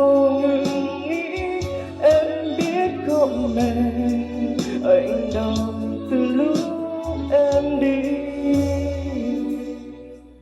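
A Vietnamese pop ballad with singing, played through the Alpha Works GENBEAT 120 party speaker. It fades out near the end as the song finishes.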